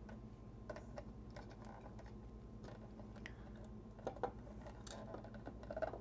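Faint, scattered small clicks and scratches of fingers working a jumper off tightly packed terminal pins on a motor drive's circuit board, over a low steady hum.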